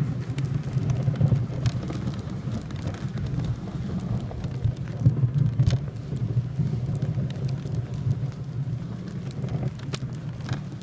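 Wooden sled runners sliding over packed snow while a reindeer pulls the sled, a steady low rumbling scrape with scattered light clicks and crunches.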